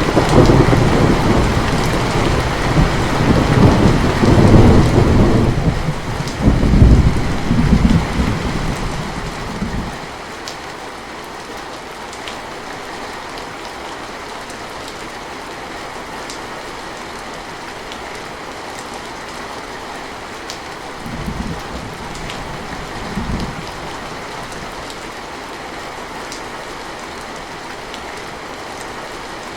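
Steady rain with a long roll of thunder rumbling through the first ten seconds, swelling twice before it fades. The rain then goes on alone as an even hiss, broken by two short, fainter rumbles about two-thirds of the way through.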